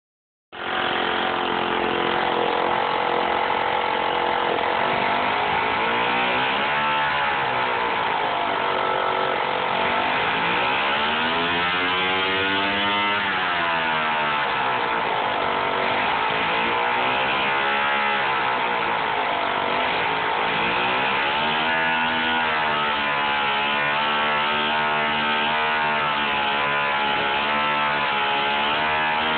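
O.S. 40 LA two-stroke model airplane engine, converted to run as a diesel on a mix of castor oil, ether and kerosene, starting up about half a second in and running well at high speed. Its pitch rises and falls slowly several times as the engine speed changes.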